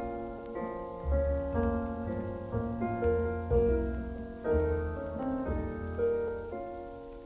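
Slow instrumental interlude from a small 1939 jazz band, led by piano, with held chords over deep bass notes and no voice.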